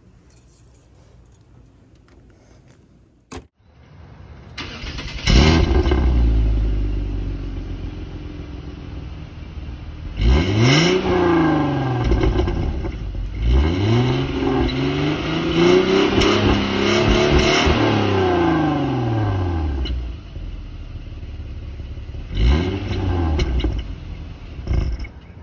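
Hyundai V6 car engine: after a single click, it starts about five seconds in and is revved up and down several times, each rev rising and falling in pitch, before settling near the end.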